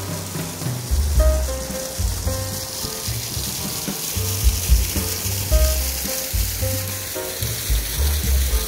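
Steady rush of a small artificial waterfall splashing into a pond, with gusts of wind buffeting the microphone in irregular low rumbles.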